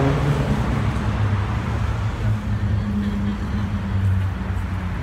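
City road traffic: a steady low drone of vehicle engines passing on a busy road.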